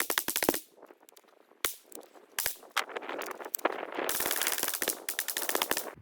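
Ruger 10/22 semi-automatic .22 LR rifle fired rapidly: a quick string of about ten shots at the start, a few single shots spaced out in the middle, then another fast string of shots in the last two seconds.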